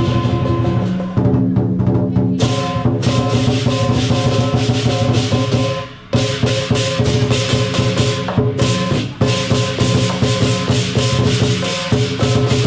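Music with fast, dense percussion strikes over steady held notes, briefly dipping and cutting back in about six seconds in.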